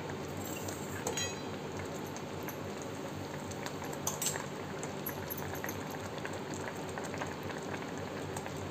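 Grated raw mango simmering in thin sugar syrup in a steel pan, a steady bubbling and crackle as the syrup cooks down. A steel spoon clinks lightly against the pan about a second in and again around four seconds.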